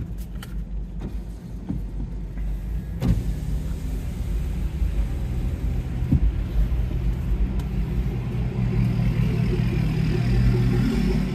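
Inside a car cabin, the engine hums steadily as the car creeps forward, with a few light clicks early on. Near the end the hum swells and a higher hiss comes in as the driver's power window runs down.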